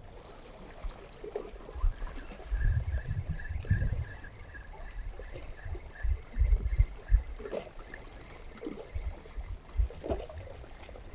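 Sea water washing up against shoreline rocks in uneven surges.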